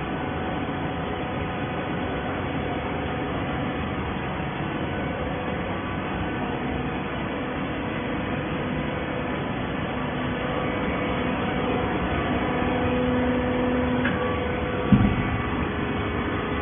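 Hydraulic waste paper baler running: a steady machine hum and whir, with a tone that grows stronger for a few seconds and a single thump about fifteen seconds in.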